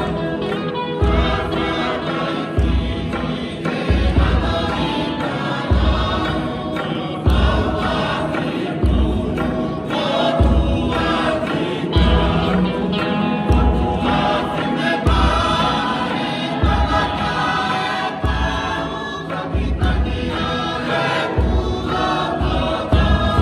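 A group of voices singing a Tongan song in harmony as the accompaniment to a tau'olunga dance, with a deep beat about every second and a half.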